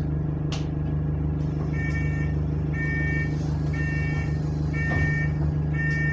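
Bus diesel engine idling steadily, heard from inside the passenger saloon. A two-tone electronic warning beeper sounds five times, about once a second, starting about two seconds in.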